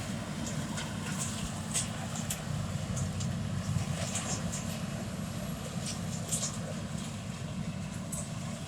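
A vehicle or harvest machine engine running steadily as a low rumble, with scattered light clicks and rattles.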